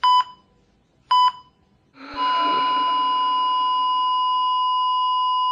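Patient monitor giving two short beeps about a second apart with the heartbeat. About two seconds in it changes to one continuous flatline tone, the monitor's signal that no heartbeat is detected.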